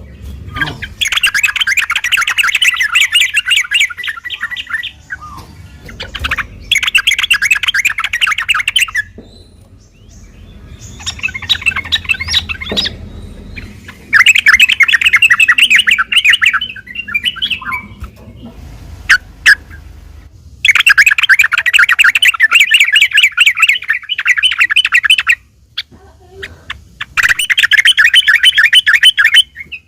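Yellow-vented bulbul (trucukan) singing in rapid, chattering rolling phrases, the 'ropel' song bird-keepers use as a lure. There are about six bursts of a few seconds each, with short gaps between them.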